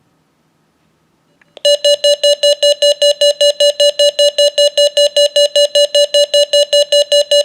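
A Nelsonic NLC788 weather radio's built-in alert siren, beeping rapidly at about five beeps a second. It starts suddenly about a second and a half in, set off by the National Weather Service warning alarm tone.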